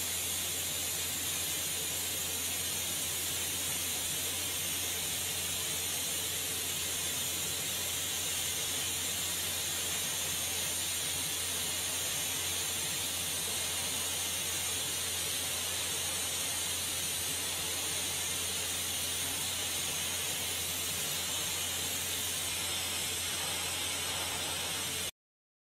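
TIG welding arc on a carbon steel pipe joint: a steady hiss with a low hum underneath, cutting off suddenly near the end.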